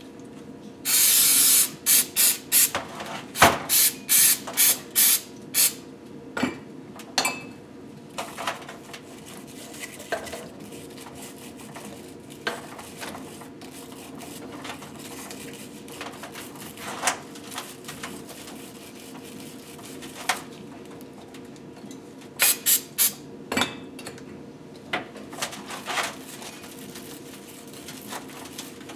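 Short hissing sprays used to clean engine parts: one longer burst, then a quick string of short squirts, and another cluster of short squirts near the end. Metal parts clink now and then between them.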